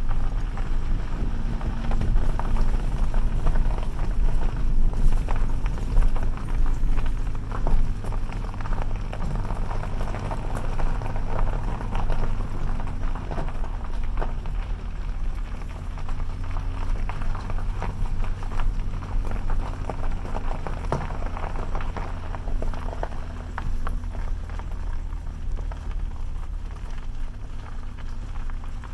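Vehicle driving on a rough gravel road: a steady low engine hum under a constant patter of small clicks and crackles from gravel under the tyres and the vehicle rattling over the bumps.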